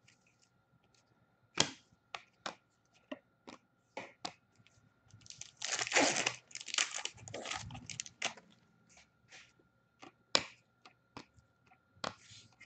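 An Upper Deck hockey card pack's wrapper being torn open and crinkled, densest from about five to eight seconds in. Scattered sharp clicks and snaps of the cards and wrapper being handled come before and after it.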